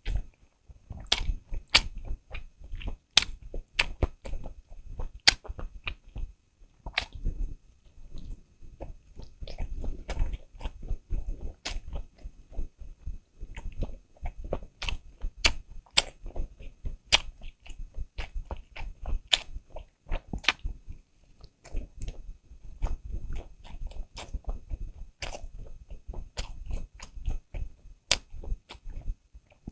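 Close-up eating sounds: chewing and biting with many sharp, irregular clicks and crunches, one after another.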